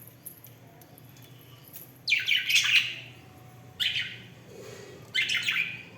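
Pet budgerigars chirping and squawking in three short bursts of calls, about two seconds in, about four seconds in and near the end.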